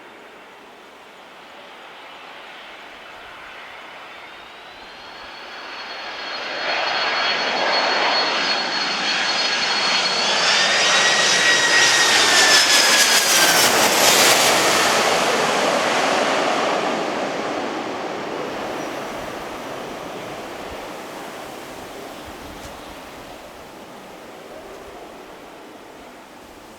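Jet airliner passing close by on its landing approach. The engine whine and rush build up, are loudest about halfway through, drop in pitch as the plane passes, then fade away.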